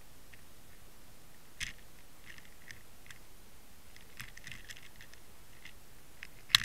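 Scattered sharp clicks and taps picked up through an underwater camera housing as the fishing rig and line shift on the seabed. One click comes about a second and a half in, a patter of clicks follows through the middle, and a loud double knock comes near the end, all over a steady hiss.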